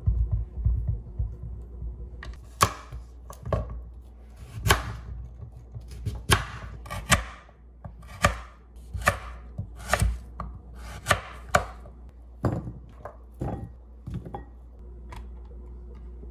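Kitchen knife chopping a kabocha squash into chunks on a wooden cutting board: about fifteen sharp, irregular knocks of the blade through the hard squash onto the board, roughly one or two a second.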